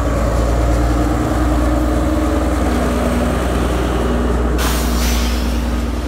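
Sri Lanka Railways Class S10 diesel multiple unit passing close by: a loud, steady diesel engine rumble with wheel-on-rail noise. A burst of hiss comes in about two-thirds of the way through and lasts about a second.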